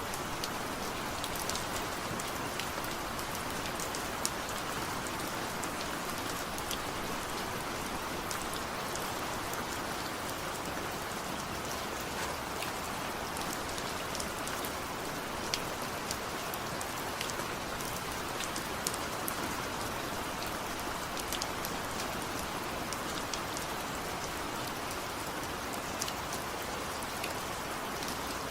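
Steady rain falling, an even hiss dotted with many sharp drip and splash ticks.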